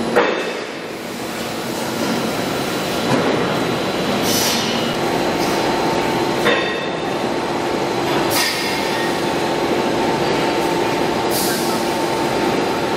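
PVC pipe extrusion line running: steady dense machine noise, with a steady hum that comes in about five seconds in. Short sharp hisses and clacks break through it several times.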